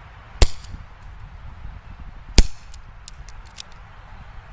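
EliteForce CQB CO2 airsoft revolver firing two shots about two seconds apart, each a sharp crack. A few faint ticks follow the second shot.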